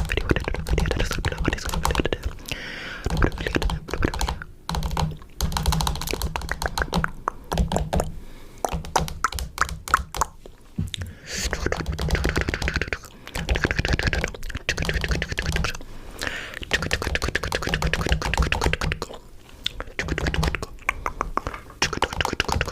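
Rapid clicking and tapping in runs of a few seconds, broken by short pauses.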